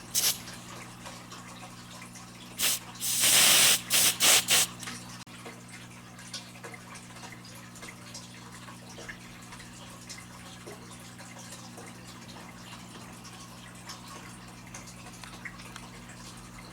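Aerosol canned test smoke sprayed at a smoke detector: a brief hiss, then a short puff, a spray of about a second and three quick puffs, over a low steady hum.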